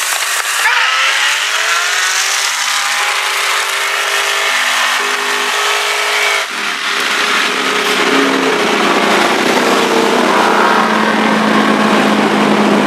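Performance car engines accelerating hard at full throttle in a roll race, rising in pitch and then stepping through gear changes. Heard from inside the car with heavy wind and road noise; the sound changes abruptly about six and a half seconds in.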